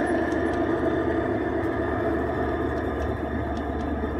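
Garden-scale model train rolling over the track, a steady rumble of wheels with faint clicks that eases slightly as the last cars pass. A low drone lies underneath in the second half.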